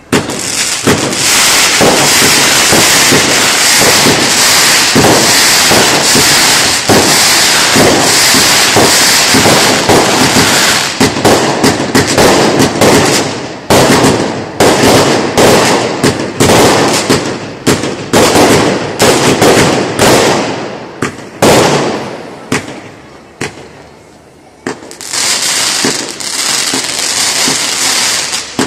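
Fireworks going off: dense crackling and hissing for the first ten seconds or so, then a quick run of many separate bangs, easing off a few seconds before the end before the hiss and crackle build up again.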